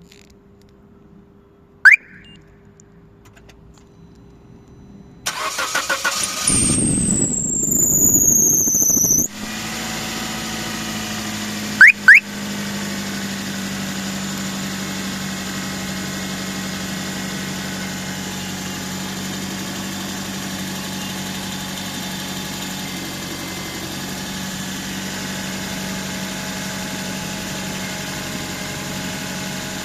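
Suzuki car engine being cranked by the starter for about four seconds, with a high-pitched whistle that falls in pitch during cranking. The engine then catches and settles into a steady idle. There is a sharp click about two seconds in and two loud clicks a few seconds after it starts. The whistle's cause is unknown.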